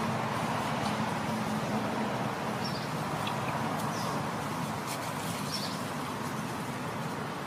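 Steady outdoor background hum and noise, like distant traffic, with three short faint high chirps in the middle and a couple of light clicks.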